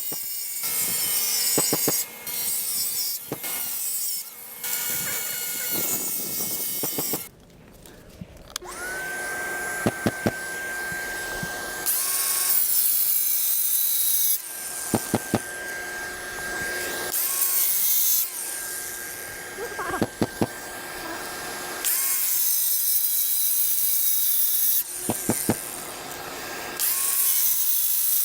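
Bosch GWS brushless cordless angle grinder cutting into concrete with a thin-rim diamond blade, in a series of passes: a high motor whine that sags in pitch as the blade bites and climbs back as it eases off, over the gritty rasp of the cut. The grinder briefly stops and spins back up about a third of the way in.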